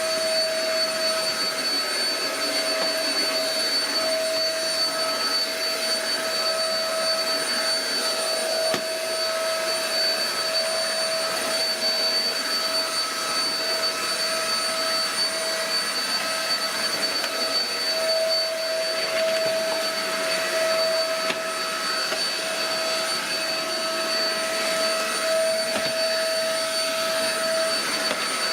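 Shark EP600 bagless stick vacuum running steadily at its single fixed speed while vacuuming, a steady motor whine over the rush of suction air.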